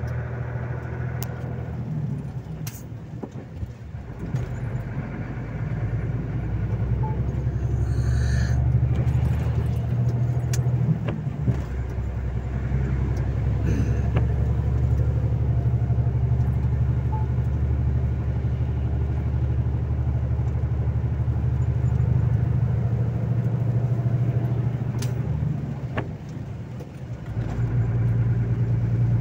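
Volvo FH 460 truck's 13-litre six-cylinder diesel engine running while driving, heard from inside the cab: a steady low drone that dips briefly near the end and then picks up again. A few sharp clicks sound over it.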